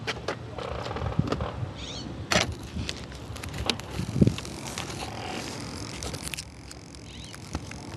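Small RC airplane skidding and rattling across asphalt as it lands and tips onto its side: scraping with repeated knocks and clatter, which stops about six seconds in.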